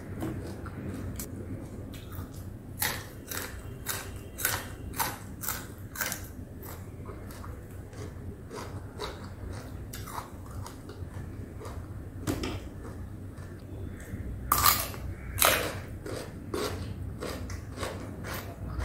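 Close-miked chewing with crisp crunches of raw greens: a quick run of crunches a few seconds in, scattered ones after, and two louder crunches near the end.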